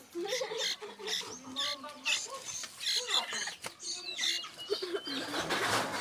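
Sooty-headed bulbul nestlings giving rapid, high squeaky begging calls, the sound of hungry chicks asking to be fed.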